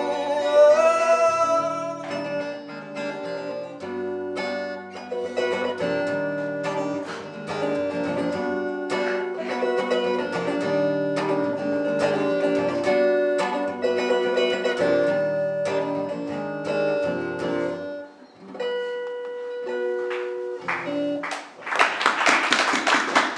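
Acoustic guitar strummed under a man's singing voice. About eighteen seconds in the song winds down to a few ringing guitar notes, and near the end applause breaks out.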